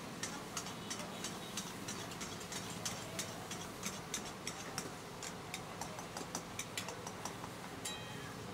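Metal spatula striking and scraping small iron woks during stir-frying, a quick, fairly regular run of clinks about three or four a second. Underneath is a steady hiss from the open gas burners.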